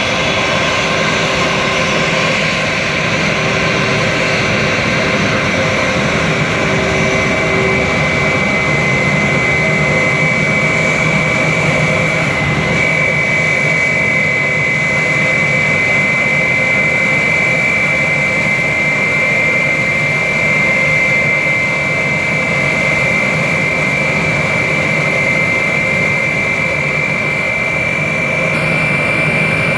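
Airbus A320's IAE V2500 turbofan engines running at taxi idle: a steady jet rush with a high, steady whine that comes in about a third of the way through and holds.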